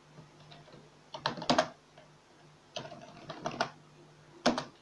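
Computer keyboard keys tapped in three short bursts, deleting characters from a chart's axis-title text.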